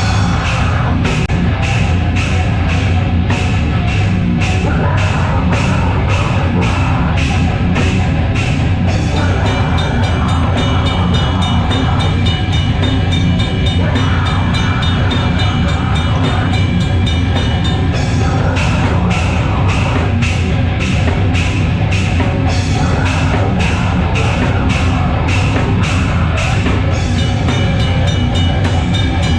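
Live heavy metal band playing loud and dense: distorted guitars and bass over a drum kit whose cymbals strike about twice a second, switching to a much faster beat for several seconds in the middle and again near the end.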